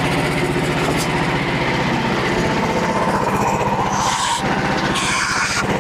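An engine idling steadily, with a regular low pulsing. Twice near the end there is a short hissing rustle over it.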